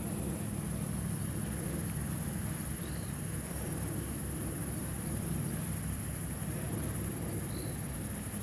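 Steady low mechanical hum under a continuous high-pitched insect drone, with two faint short chirps, about three seconds in and again near the end.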